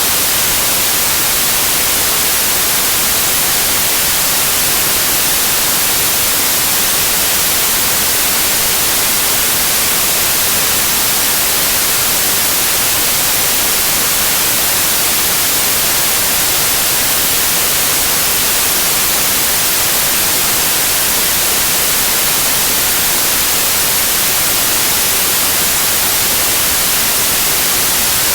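TV-static white noise: a steady, unchanging hiss, strongest in the high treble.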